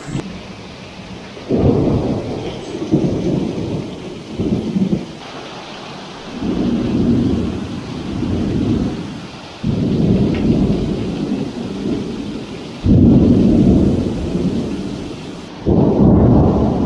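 Thunderstorm downpour: a steady hiss of heavy rain with loud, low rumbles of thunder that start suddenly several times and swell and fade over a few seconds each.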